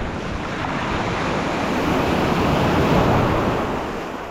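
Ocean surf breaking in the shore break, a wave swelling to a peak about three seconds in and then washing out.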